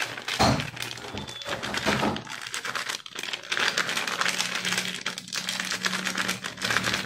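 A small plastic seasoning sachet crinkling continuously as fingers work it open, a fast, dense crackle.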